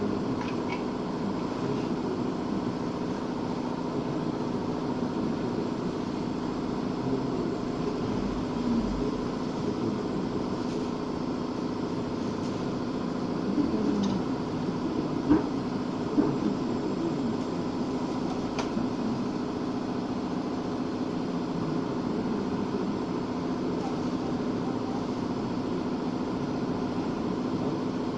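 Steady mechanical hum, with two short clicks about halfway through.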